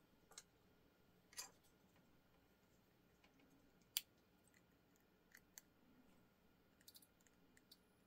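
A handful of small, sharp clicks from hands handling a blade-type DC circuit breaker and alligator-clip test leads, the sharpest about four seconds in, over a near-silent background.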